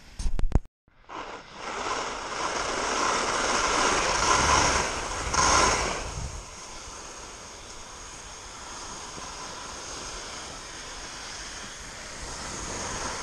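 Skis sliding and scraping over wind-packed snow on a downhill run, with wind rushing over the microphone, loudest for a few seconds early on and then steadier. It opens with a few sharp knocks and a moment of silence.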